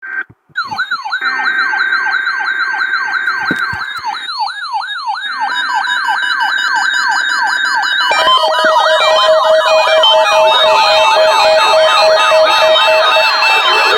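Several weather alert radios sounding their alarms together for the weekly test: overlapping rapid electronic siren sweeps, about three a second. About eight seconds in, more alarms join, among them a steady beeping tone, and the sound gets louder.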